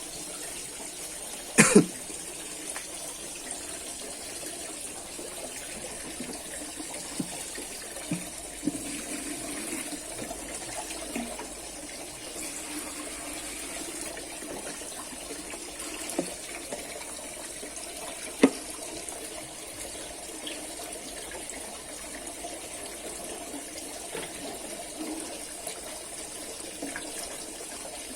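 Steady rush of water with a faint high hiss throughout, broken by a few sharp knocks, the loudest about two seconds in and another near eighteen seconds.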